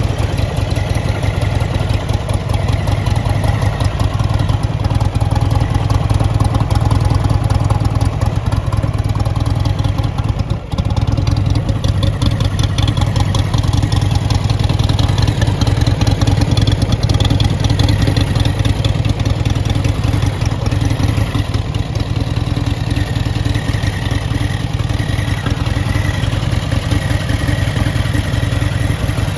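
Buell XB12S Lightning's air-cooled V-twin engine idling steadily.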